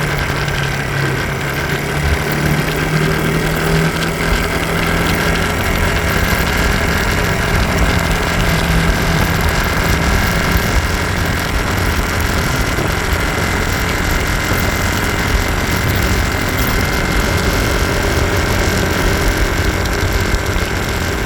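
SYM DRG scooter's single-cylinder engine idling steadily with an abnormal chain-like rattle, one that remains even after the cam chain tensioner was adjusted.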